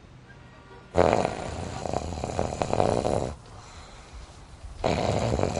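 A man snoring loudly: a long, rasping snore starting about a second in and lasting over two seconds, then a second one beginning near the end.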